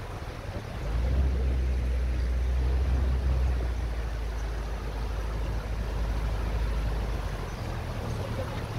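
Maruti Suzuki Gypsy driving off-road: a low engine rumble that swells about a second in and then runs steadily, with tyre and road noise over it.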